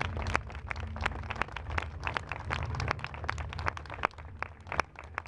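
Scattered applause from a small audience: irregular hand claps several times a second, thinning a little after about four seconds.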